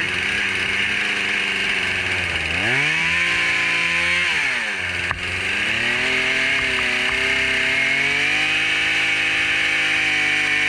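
Chainsaw running: it revs up about two and a half seconds in, holds briefly, drops back about two seconds later, then climbs slowly again and holds a steady high pitch.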